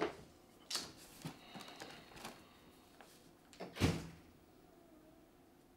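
A few soft knocks and clicks in a quiet room, the loudest about four seconds in, then it settles to room tone.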